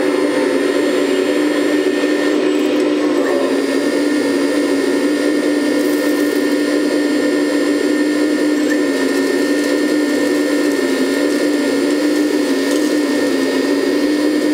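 Hydraulic pump of a 1/14 scale Lesu ET26L RC excavator whining steadily as the machine works its arm and bucket, the pitch wavering slightly with the load.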